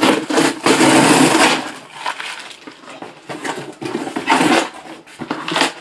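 Bursts of rustling, crinkling handling noise, with one long loud stretch near the start and shorter bursts later.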